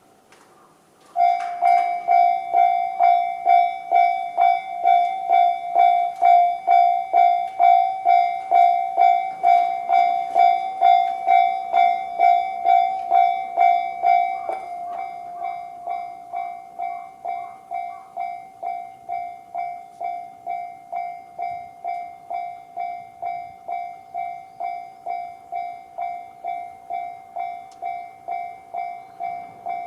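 Japanese railway level-crossing alarm in the JR standard electronic bell tone, starting about a second in and ringing about twice a second. About halfway through it drops to a clearly lower volume and keeps ringing at the same rate.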